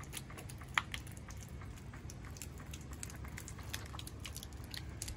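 Homemade PVC hydraulic ram pump running: faint, irregular clicks and taps from its valves and water, one sharper click about a second in, over a steady low hum.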